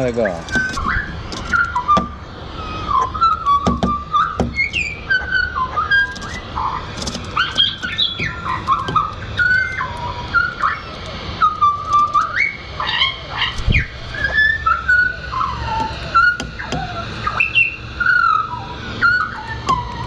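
Pied butcherbirds singing: a continuous string of clear, flute-like whistled notes that slide up and down in pitch, with more than one bird singing at once.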